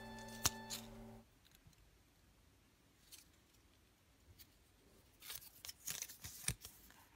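Faint handling noises: a sharp click about half a second in, then a cluster of small clicks and crinkles near the end, like small plastic pieces or a wrapper being handled.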